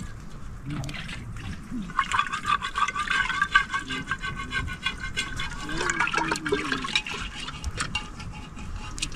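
Water running, louder from about two to seven seconds in.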